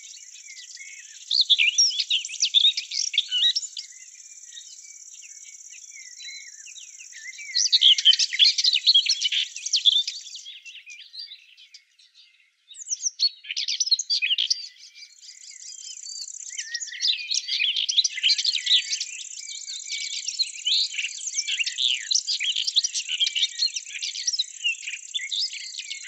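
Small songbirds chirping and twittering in bursts over a steady high-pitched insect trill. The sound briefly drops out about halfway through, then the chirping comes back busier and keeps going.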